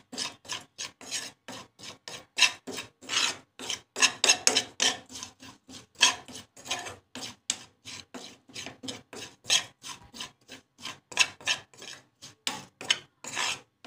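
Metal spoon scraping and stirring dry cumin seeds and ground spices around a frying pan as they dry-roast, in quick rasping strokes of about three a second.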